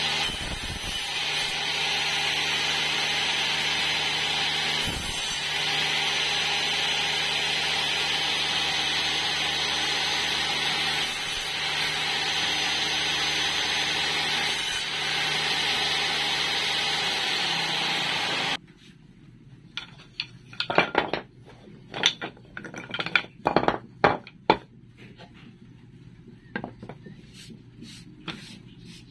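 Table saw running steadily while a strip of wood is fed across it on a crosscut sled. The saw sound stops abruptly about two-thirds of the way through, and sharp knocks and clatters of wooden pieces being handled on a workbench follow.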